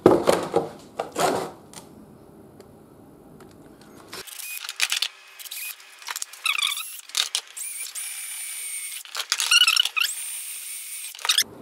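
Cordless drill pilot-drilling through a plastic motorcycle mudguard mounting in several short runs, its motor whine rising as it spins up each time. A few knocks of the plastic mudguard being handled come near the start.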